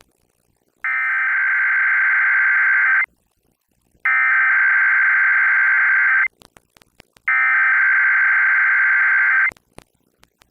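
Emergency Alert System SAME header: the digital data tones are sent three times, as three identical screeching bursts of about two seconds each, a second apart. They open a Required Weekly Test. Faint radio static clicks between the bursts.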